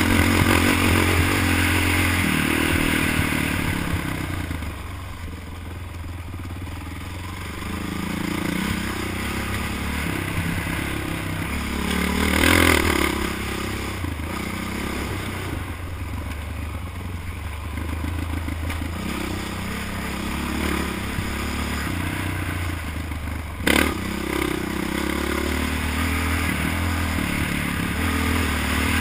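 ATV engine running under load and revving up and down as the quad climbs a dirt trail, heard from a camera mounted on the machine, with the clatter of the quad over rough ground. A single sharp knock comes late on.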